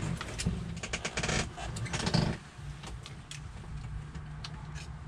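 Hands handling loose wires and a paper diagram at the truck's dash: a busy run of rustles and small clicks for the first couple of seconds, then lighter handling noises over a steady low rumble.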